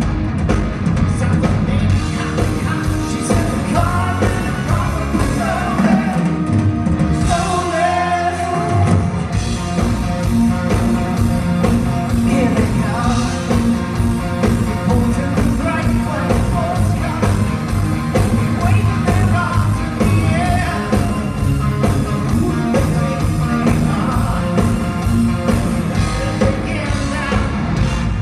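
Live rock band playing: electric guitars, bass and drums under a male lead vocal. About seven seconds in the low end drops away for a couple of seconds, leaving mostly the voice, then the full band comes back in.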